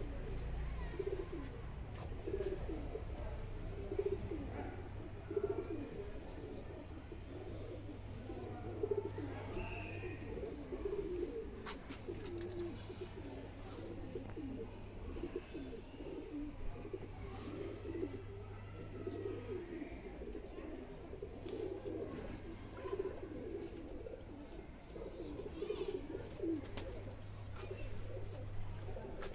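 Domestic highflyer tumbler pigeons cooing, one soft low call after another with no break, the calls overlapping. A steady low hum sits beneath, on and off.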